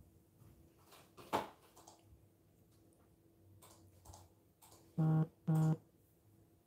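Two short, low electronic buzzes about half a second apart, each a flat steady tone that starts and stops abruptly, with a faint knock about a second in.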